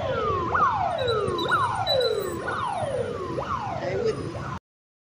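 A vehicle siren repeating about once a second, each cycle a quick upward sweep followed by a slower falling tone, over the steady rumble of traffic. It cuts off abruptly near the end.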